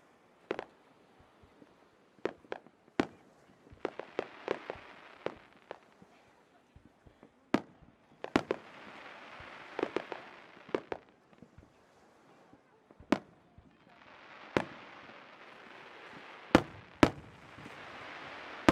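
Aerial fireworks bursting: many sharp bangs at irregular intervals, some close together, with stretches of steady crackling hiss between them.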